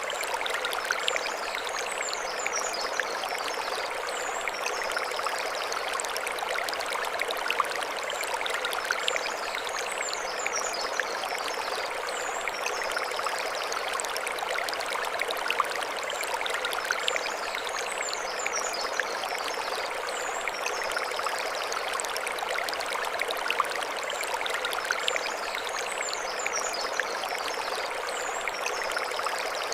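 Mountain stream flowing over stones: a steady rushing babble with small splashes and crackles throughout. A high chirping phrase comes in over it about every eight seconds.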